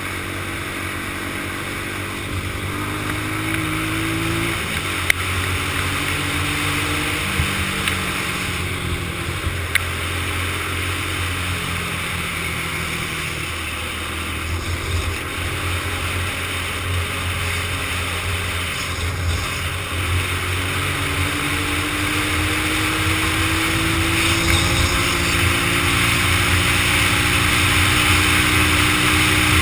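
Small single-cylinder all-terrain vehicle engine under way, its revs climbing and stepping through gear changes, with wind rushing over the microphone.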